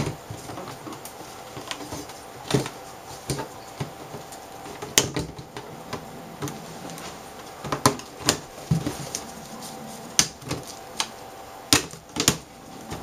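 Irregular clicks and light knocks of a thin sheet-metal LCD frame being fitted back around the panel, metal tapping against metal as it is handled.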